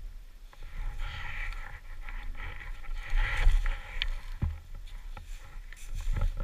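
Dirt bike engines running at idle, a steady low rumble, with a few sharp knocks around four seconds in.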